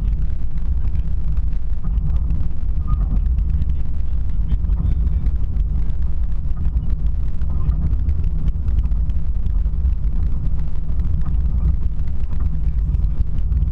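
Car driving: a steady low rumble of engine and road noise that does not change.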